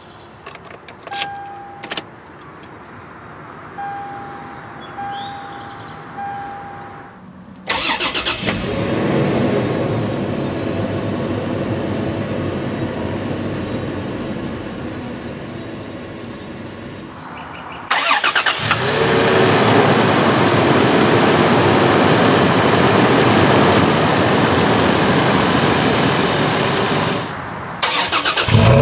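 A few chime beeps and the click of a key in the ignition, then the 2018 Toyota 4Runner TRD Off Road's 4.0-litre V6 cranks and starts about eight seconds in, its cold-start fast idle slowly settling. After a short break the engine is heard idling again at the tailpipe, louder and steady.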